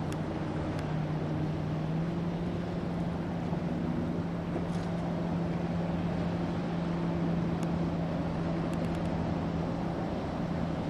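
Boat engine running with a steady low drone, over a broad rush of wind and water.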